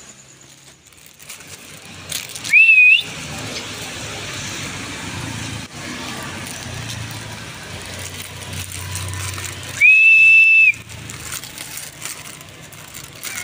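Two loud whistles, calling stray cats: a short, wavering one that rises about two and a half seconds in, and a longer steady one about ten seconds in. Both sit over steady background noise.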